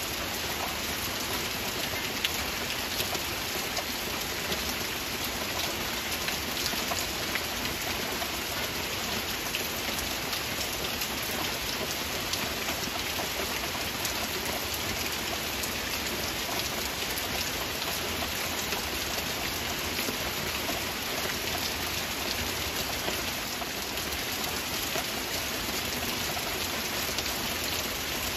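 Steady heavy rain, a dense patter of drops hitting surfaces with no break or change.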